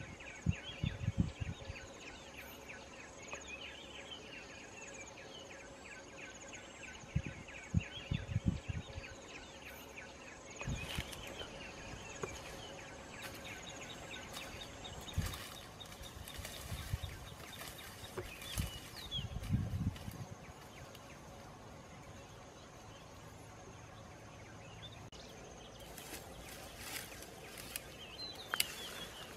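Faint outdoor ambience of bird and insect calls over a steady high insect buzz, broken at intervals by footsteps and the crunch and rustle of dry grass and brittle stalks underfoot and brushed aside. The rustling is busiest near the end.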